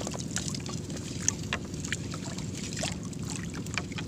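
Wet gillnet being hauled hand over hand out of the sea over the side of a small outrigger boat: scattered small splashes, drips and clicks of the mesh and water over a steady low rumble.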